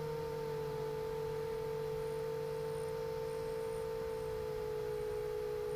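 A steady humming tone, with fainter steady tones above and below it, dipping slightly in pitch about four seconds in.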